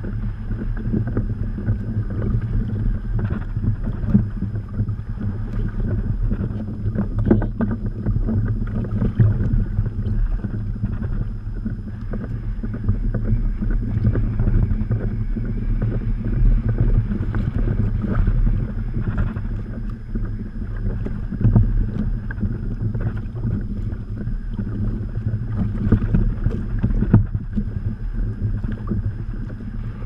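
Strong wind buffeting the microphone in a steady, gusting low rumble, over choppy water slapping at the kayak.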